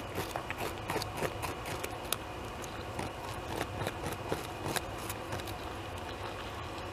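North American beaver gnawing bark off a large tree trunk, its incisors scraping and crunching in quick, irregular clicks as it strips the bark to eat the cambium beneath. The gnawing thins out about five seconds in, over a steady low hum.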